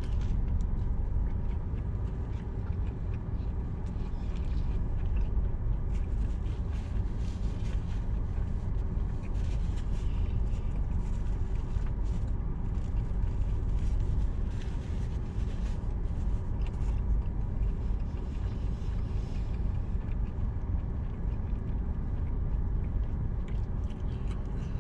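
Steady low rumble of a car engine idling, heard inside the car's cabin, with faint scattered crackles over it.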